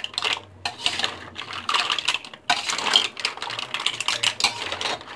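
Green mussel shells clattering against each other and the pot as they are stirred: a fast, uneven run of small hard clicks.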